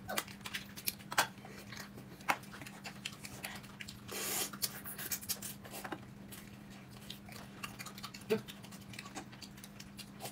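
Eating noises: chewing and the irregular small clicks and taps of chopsticks or utensils on dishes, with a brief rustle about four seconds in, over a faint steady low hum.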